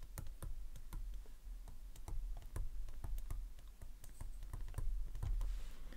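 Irregular light taps and clicks of a digital pen writing by hand on a tablet or touch screen, several a second, over a low steady hum.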